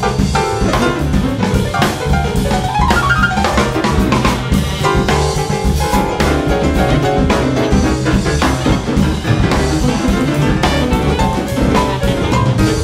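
Jazz quartet recording: an acoustic drum kit plays busily over piano and bass, with dense drum and cymbal strokes throughout.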